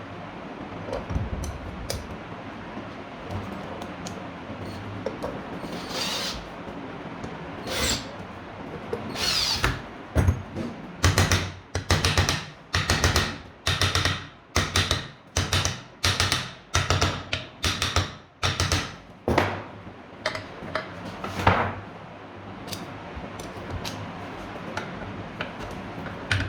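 Tool work on a ceiling fan during a bearing replacement: a run of regular rasping strokes, about one and a half a second, for some ten seconds in the middle, with scattered knocks before and after.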